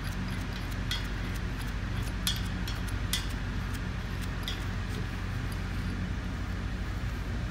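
A few faint metallic clicks, about four over the first five seconds, as a nut is run onto a bolt of a centrifugal pump's mechanical-seal cover by hand. Under them runs a steady low hum.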